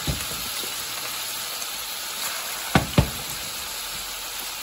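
Flour-dredged flounder fillets sizzling as they fry in a stainless steel skillet, a steady hiss. A spatula knocks against the pan once at the start and twice in quick succession a little past the middle, the loudest sounds.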